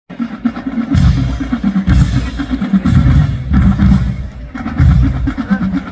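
Marching band drumline playing a cadence: heavy bass drum strokes land about once a second over a rapid snare drum pattern.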